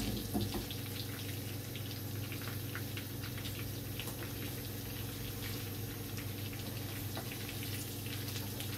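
Chicken pieces frying in a pan of garlic-lemon butter sauce: a steady sizzle and bubble made of many small crackling pops, over a low steady hum.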